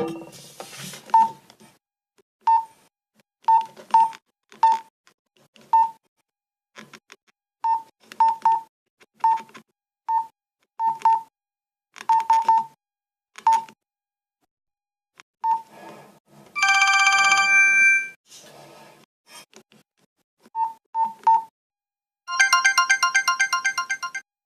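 Nokia 112 phone keypad pressed about twenty times at an irregular pace, each press a click with a short beep. Midway a polyphonic MIDI ringtone sounds for about a second and a half through the phone's small speaker, and near the end a fast-pulsing MIDI ringtone starts.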